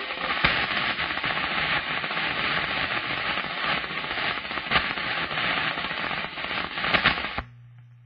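CB radio receiver hissing and crackling with static, dotted with sharp pops, which cuts off suddenly about seven seconds in.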